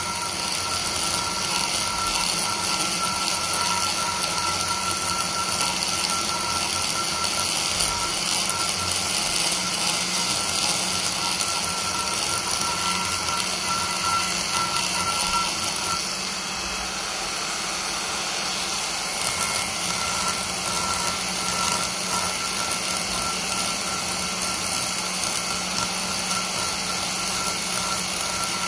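Hand-held die grinder running steadily, its single-cut burr cutting lightly into the aluminium bowl of a Toyota 2JZ-VVTi cylinder head port: a quick rough-out pass in hand porting. The whine and cutting hiss dip slightly about two-thirds of the way through.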